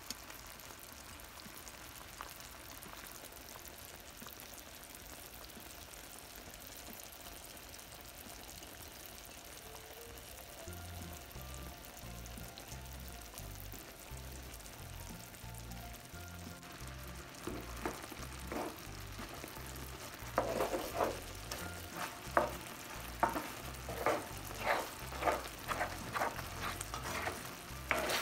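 Pepsi and ketchup sauce boiling around chicken wings in a frying pan: a steady bubbling sizzle as the sauce reduces and thickens. About halfway through, background music with a regular beat comes in over it and is the loudest thing by the end.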